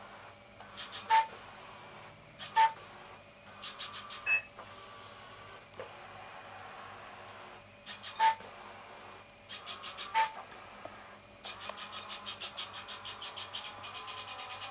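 Small homemade robot rover beeping short mid-pitched tones four times, with short runs of rapid mechanical clicking between them and one higher chirp. Near the end, a steady rapid ticking sets in, about six ticks a second.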